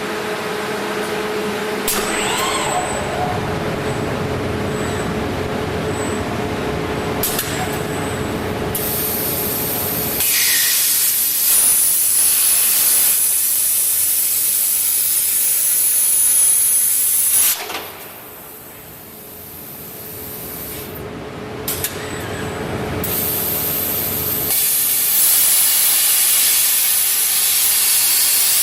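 Robot-guided plasma cutting torch: a loud hiss with a thin, very high steady whistle. It comes in about nine seconds in, cuts off suddenly around seventeen seconds, and builds back up from about twenty-three seconds. Before it, a steady machine hum with one held tone.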